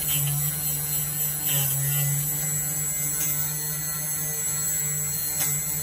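Automatic phone-screen glass cutting machine running, its motor giving a steady low hum as it drives the cutting wire.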